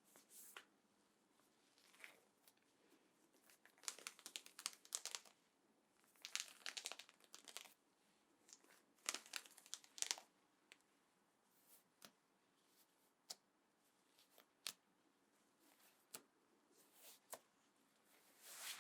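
Leather creaking and rubbing close to the microphone, in several short crackly bursts of a second or two with scattered soft clicks between.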